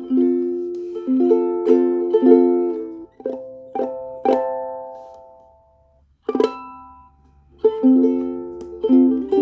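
Ukulele played solo: a run of picked chords, then three strummed chords left to ring out, a lone chord about six seconds in, and the picking resumes near the end.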